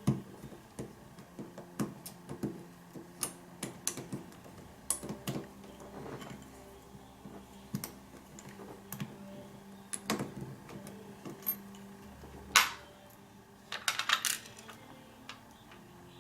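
Irregular small metal clicks and taps from a pin-tumbler lock and its tools being handled while it is taken apart, with a quick cluster of clicks about 14 seconds in.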